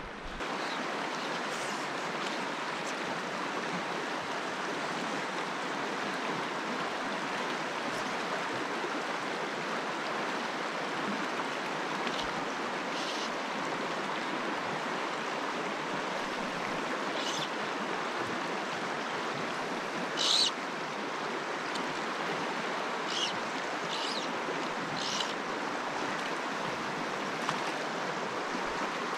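Mountain trout stream running over a rocky riffle: a steady rushing and burbling of water. A few short high-pitched sounds rise above it now and then, the loudest about two-thirds of the way through.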